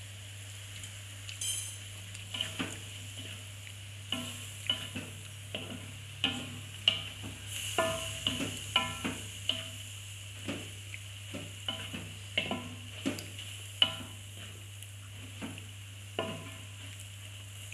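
Spatula clacking and scraping against a metal wok while mustard greens, tofu and egg are stir-fried: irregular sharp knocks, several a second at times, over a steady sizzle and a low hum.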